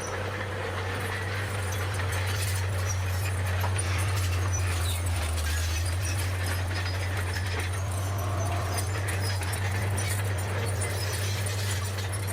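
Bulldozer's diesel engine running with a steady low drone, with scattered light clicks and clanks over it.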